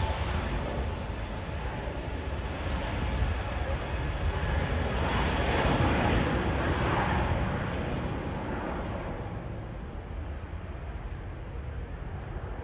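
Airbus A321neo jet engines at takeoff thrust, a broad roar with a low rumble that swells to its loudest about halfway through and then fades as the airliner passes and climbs away.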